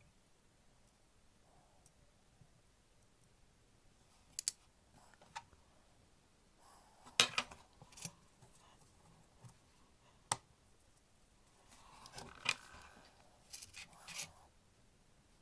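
Scattered small clicks and taps of steel tweezers and brass watch-movement parts being handled on a bench and against clear plastic parts trays. The loudest taps come about seven, ten and twelve and a half seconds in.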